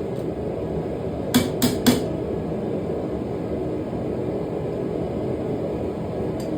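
Three quick hammer blows on steel, a little over a second in, each with a short ring, over the steady running noise of a small forge. The blows fit hammering a hot leaf-spring blank straight.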